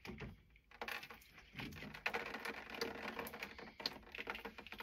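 Plastic canister of a Navien acid neutralizer being unscrewed by hand from its head and lowered away: a run of light plastic clicks and taps with some scraping as the threads turn and the canister comes free.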